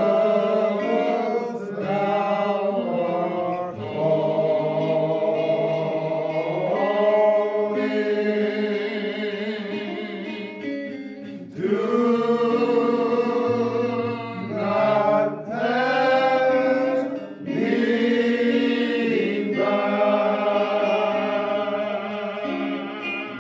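Choir singing slow phrases of long held notes, with short breaks between them.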